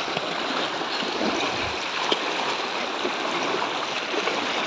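Floodwater flowing steadily over a submerged road, a continuous even wash of moving water.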